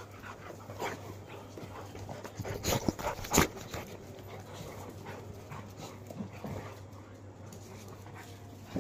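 Pet dogs playing together, with scuffling and dog sounds and a cluster of short, sharp sounds about three seconds in. A steady low hum runs underneath.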